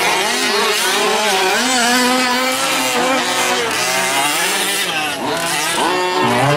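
Small two-stroke engines of 1/5-scale gas RC off-road race trucks revving up and easing off through the corners, their pitch rising and falling over and over.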